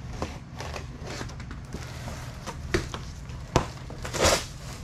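Corrugated cardboard box being slit along its top with a box cutter and pulled open, with scraping and crinkling of cardboard and a couple of sharp knocks. A louder, longer rip of cardboard comes near the end.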